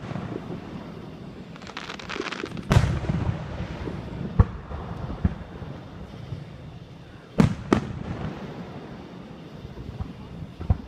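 Fireworks going off: a brief run of crackling, then several sharp booms echoing out, two of them in quick succession about two-thirds of the way through.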